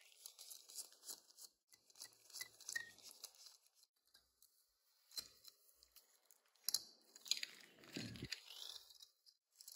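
Faint scratchy clicks and scrapes of a small diecast model car being taken apart by hand: a precision screwdriver turning in the chassis screws, then sharper clicks as the plastic and metal parts are pulled apart, twice louder near the end.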